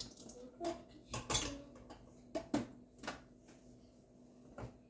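A few light clinks and knocks of kitchen dishes and utensils being handled, about five in all, spaced roughly a second apart, the loudest about a second and a half in.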